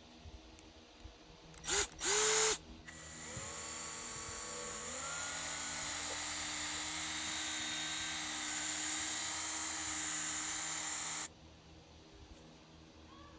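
Power drill spinning a pad from a 3M headlight restoration kit. It gives two short loud bursts about two seconds in, then runs for about eight seconds, its pitch rising as it comes up to speed, and cuts off suddenly.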